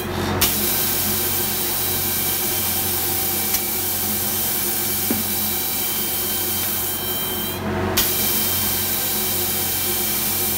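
Automatic spray-painting machine running: air spray guns hissing steadily over a machine hum, the spray cutting off briefly twice, just after the start and about seven and a half seconds in.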